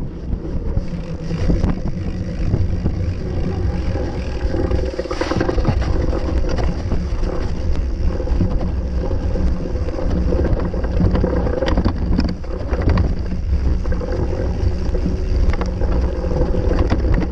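Wind rumbling on the microphone over the rattle of a mountain bike riding over rough dirt and grass, with scattered sharp knocks from bumps in the track.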